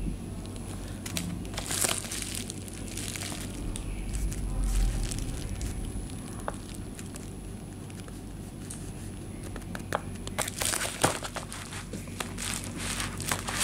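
Bubble-wrap and plastic parcel packaging crinkling as it is handled, in scattered bursts at first and denser crackling in the last few seconds.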